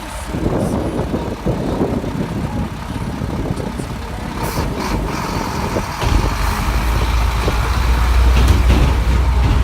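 Heavy truck engine running, with a deeper, louder rumble starting about six seconds in.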